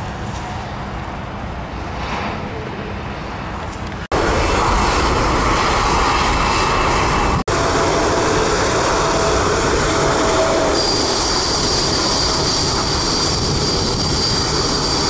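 Jet airliner engines on the runway, heard in edited takes. A Boeing 737-800 rolls at first. The sound jumps louder at a cut about four seconds in. After a second cut, a Boeing 787 Dreamliner's Rolls-Royce engines run loud and steady, and a high steady whine joins in about two-thirds of the way through.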